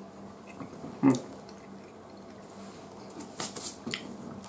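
Quiet mouth sounds of people chewing matcha mochi. A short hummed "mm" comes about a second in, and a few sharp, wet clicks and smacks of the mouth follow near the end.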